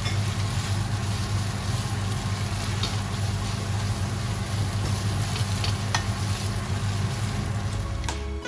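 Yellow noodles and rice vermicelli sizzling in a hot wok as they are tossed and mixed with two wooden spatulas, with a few light clicks of wood on the pan over a steady low hum.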